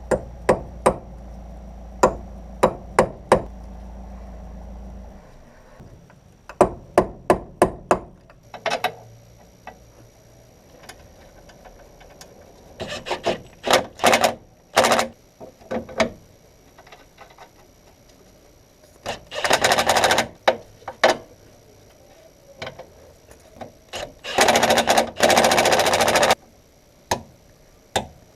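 Metal tool work on the car: groups of sharp metallic knocks, and three bursts of rapid rattling lasting one to two seconds each. A low steady hum sounds under the first few knocks and stops about five seconds in.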